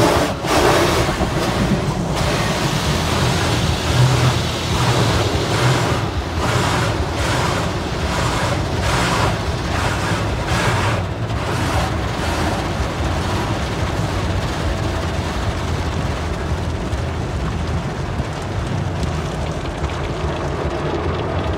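Automatic car wash heard from inside the car's cabin: water spray and cloth wash brushes slapping the windshield and body in a regular rhythm about twice a second. After about twelve seconds this settles into a steadier rush of spray.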